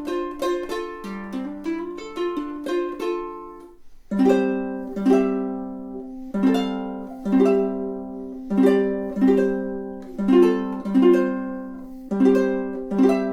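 Uma Pulse KT all-solid acacia fan-fret tenor ukulele played solo: fingerpicked single notes, then from about four seconds in, loud strummed chords at a steady pulse.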